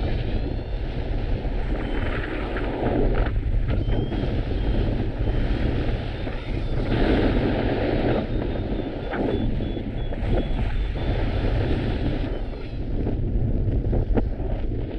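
Strong wind buffeting the microphone in gusts, loud and heaviest in the low end, as the paraglider pilot flies in strong wind. A faint, high, broken tone sounds through the middle.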